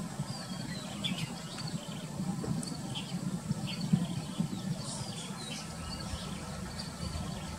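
Heavy 18-wheel truck's diesel engine running low and steady as the truck and trailer reverse slowly, with birds chirping over it.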